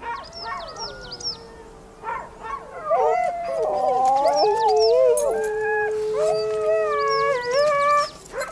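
Several huskies howling together in long, overlapping held notes, with short high yips and whines in between: sled dogs restless and eager to run.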